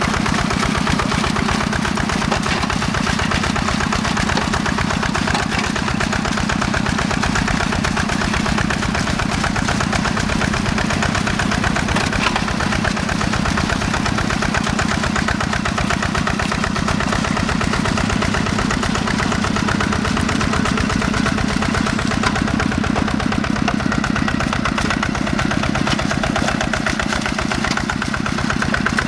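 Single-cylinder Yanmar diesel engine of a Quick G1000 two-wheel hand tractor running steadily under load with a fast, even beat as it pulls a plough through deep, flooded paddy mud.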